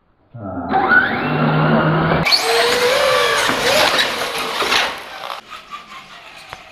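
Traxxas radio-controlled trucks' electric motors whining and rising in pitch as they accelerate hard, starting abruptly and falling away about five seconds in.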